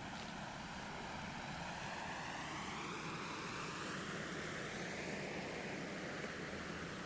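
Steady rushing noise of a passing motor vehicle, its tone slowly sweeping up and down in a whooshing, phaser-like way.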